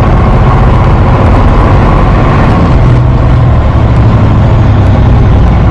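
Heavy vehicle's engine running steadily at a constant drone, heard from inside the cab.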